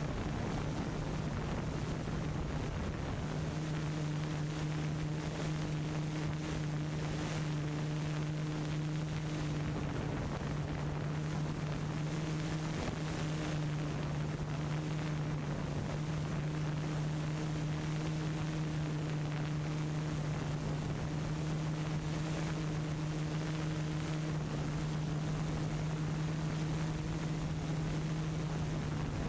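A steady low hum holding one pitch, over an even hiss.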